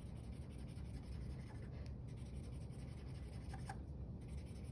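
Green marker scribbling on a paper worksheet: faint, quick back-and-forth colouring strokes, with a few light taps of the tip on the paper.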